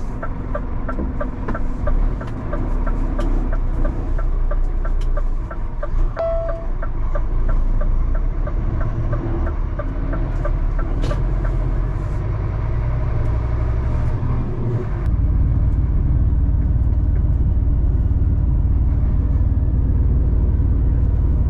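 Diesel engine of a 26-tonne rigid lorry heard from inside the cab. The turn indicator ticks evenly for the first six seconds or so, and a short beep sounds just after. About fifteen seconds in the engine grows louder and steadier.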